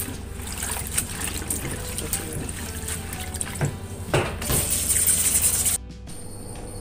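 Water sloshing and splashing in a plastic bowl in a stainless steel sink as a hand swishes sweet potato leaves in their salt-water soak. Near the end there is a louder rush of water, which cuts off suddenly, leaving faint background music.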